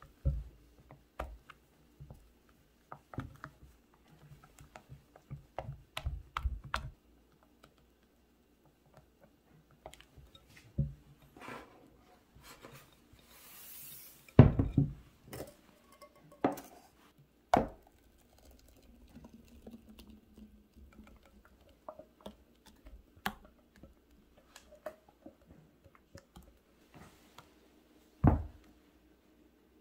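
Silicone spatula stirring and scraping cake batter in a glass mixing bowl, with scattered light clicks and knocks against the glass. About halfway through the batter is poured into an aluminium cake pan, with a brief rush followed by several louder knocks, and one more thump near the end.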